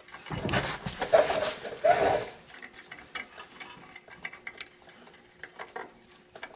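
Front brake caliper being lifted off the rotor, a rough scraping of metal on metal for about two seconds with two louder pulls. Then light clicks and handling noises as the caliper is hung up out of the way.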